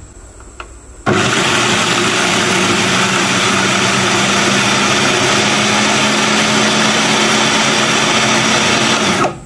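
Electric food processor running, chopping onion, garlic, shallots, ginger and lemongrass into a paste. The motor switches on about a second in, runs with a steady whir for about eight seconds and stops just before the end.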